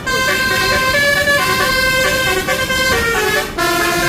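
Tour bus's telolet basuri musical horn playing a tune: loud, steady horn notes that step from pitch to pitch, with a brief break about three and a half seconds in.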